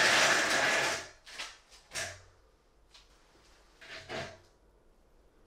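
Steel drywall CD profile scraping loudly against its metal fittings for about a second and a half as it is shifted into position, followed by a few light metallic knocks and clicks.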